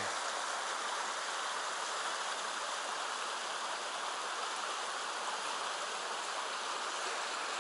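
Shallow mountain stream running over a rocky bed: a steady, even rush of water.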